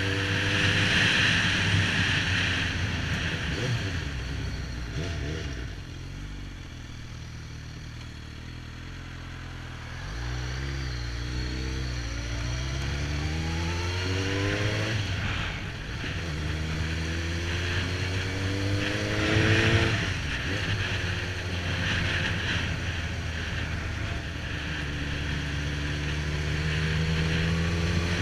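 Suzuki GSX-R1000 inline-four engine accelerating through the gears: its pitch climbs and drops back at each upshift, about a second in, again near 15 s and near 20 s. A quieter stretch with the throttle eased comes in the middle.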